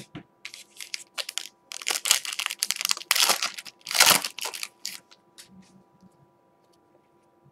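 Panini Prizm basketball card pack wrapper crinkling and tearing as it is ripped open by hand. The rustling is loudest around three to four seconds in, then dies away.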